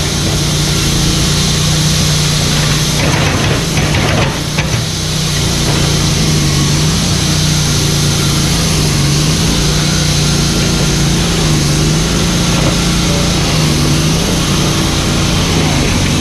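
Mini excavator's diesel engine running steadily, its pitch dipping briefly several times, with a few knocks about three to five seconds in.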